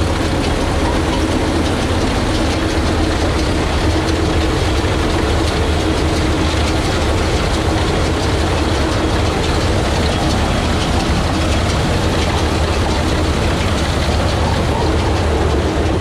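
Tractor engine running steadily while pulling a New Holland 848 round baler that is picking up a windrow and forming a bale, the baler's mechanical clatter mixed with the engine hum.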